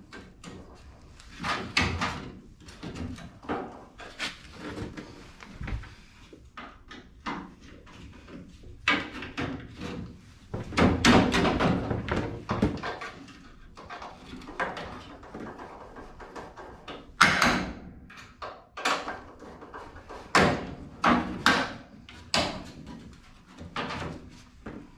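Intermittent knocks, clunks and rattles of hands-on work fitting a grille and header panel to the front of a truck, with a longer stretch of clattering in the middle and a few sharp single knocks later on.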